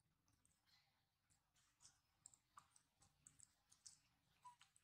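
Near silence, with faint, scattered small clicks, a few a second.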